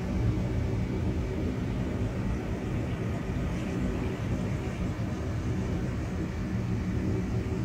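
Steady low rumbling drone with a faint hiss above it: a 'sound of space' ambient recording, said to be electromagnetic signals converted into audible sound.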